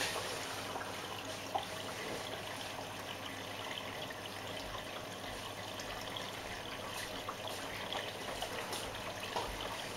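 Water trickling steadily inside a Miele Navitronic washing machine's drum while the drum stands still.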